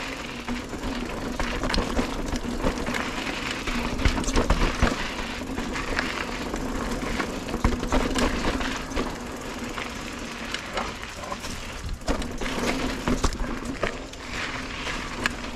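Mountain bike being ridden over a dirt forest trail: steady tyre and wind noise with frequent sharp rattles and knocks from the bike over roots and bumps, and a low steady hum underneath.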